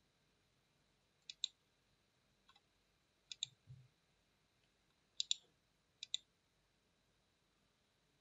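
Computer mouse button clicking: short sharp click pairs, the button pressed and released, about four times, with a fainter click in between.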